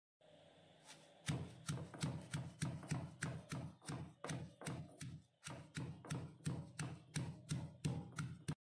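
Stone pestle pounding fresh leaves in a granite mortar: a steady series of dull thuds, about three a second, starting a second or so in.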